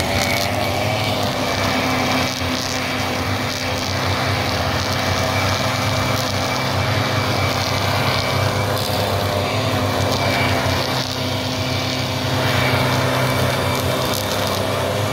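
Several small two-stroke engines running steadily at once: backpack brush cutters spinning nylon trimmer line through grass, with a backpack blower engine close by.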